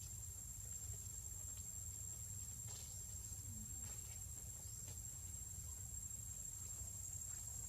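Insects holding one steady, thin, high-pitched drone, over a faint low rumble, with a few soft clicks in the middle.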